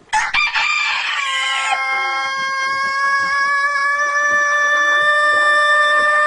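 Rooster crowing one extraordinarily drawn-out crow. It starts rough and breaking, then settles about a second in into a single steady note held for several seconds and rising very slightly, like a siren or warning buzzer.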